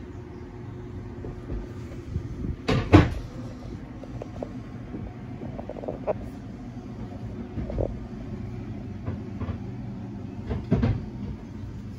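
Several thumps and knocks, the loudest a pair about three seconds in, from someone walking across a boat's fibreglass deck and down the companionway steps into the cabin. A steady low hum runs underneath.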